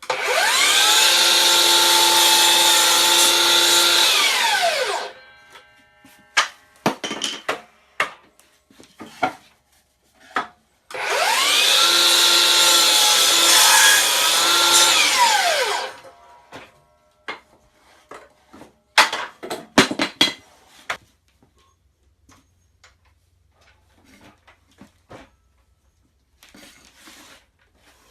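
DeWalt DHS790 FlexVolt 12-inch sliding compound miter saw making two cuts. Each time the brushless motor spins up fast, runs with a steady whine for about five seconds, then winds down in a falling pitch. Clicks and knocks come between the cuts and near the end.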